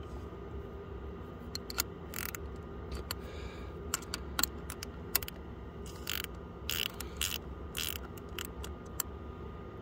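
Spanner clicking and scraping on the air-bleed screw of a Volvo Penta MD11C diesel's fuel filter as it is worked loose: a scatter of sharp metallic clicks and a few short noisy bursts over a steady low hum.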